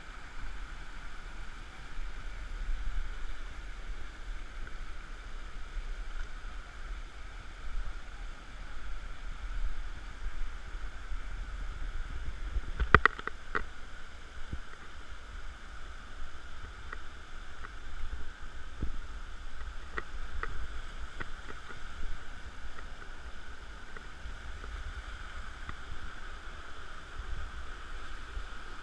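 Water sloshing and gurgling, with a few sharp knocks, the loudest about thirteen seconds in.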